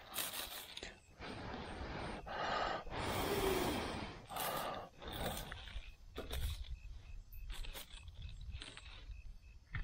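A person blowing in a series of long breaths onto smouldering embers in a tinder bundle of dry grass and pine needles, coaxing a campfire to catch flame.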